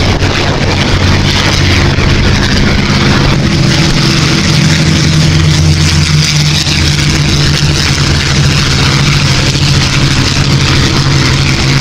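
Supermarine Spitfires taking off one after another, their V12 piston engines at full power: a loud, steady, deep drone with a rushing noise above it. The pitch shifts slightly about three seconds in.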